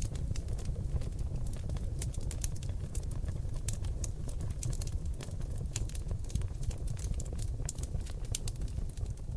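Seasoned oak logs burning in a fireplace: a steady low rumble of flame with frequent sharp crackles and pops.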